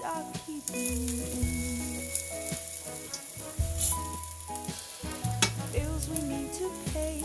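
Rice pancakes sizzling in hot fat in a frying pan, with short scrapes and taps of a spatula against the pan as they are turned. Background music with a bass line plays underneath.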